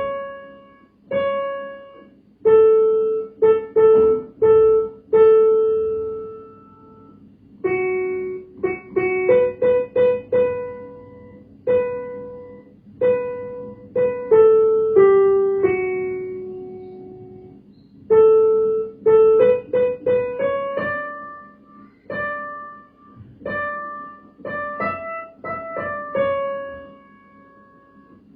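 Piano playing a slow hymn tune as plain struck notes and chords, in phrases with short pauses between them.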